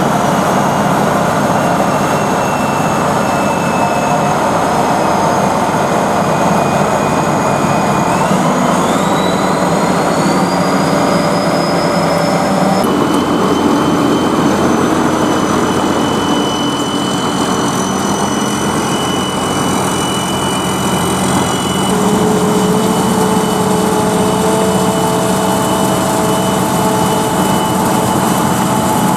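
Corn combine harvester running at work: a loud, steady drone of the engine and threshing machinery with high whines over it, one of which rises in pitch about a quarter of the way in; the sound changes abruptly a little before halfway.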